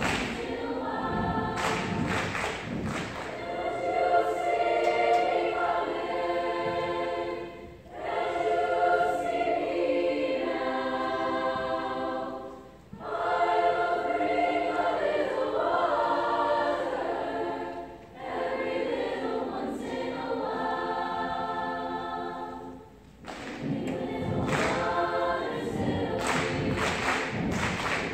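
Large mixed choir singing in sustained phrases of several seconds each, with brief breaths between them. Rhythmic thumps run under the singing at the start and again through the last few seconds.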